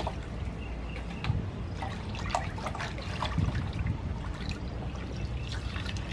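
Hands washing and rubbing squid in a metal basin of water: light splashing and sloshing with scattered small splashes and drips.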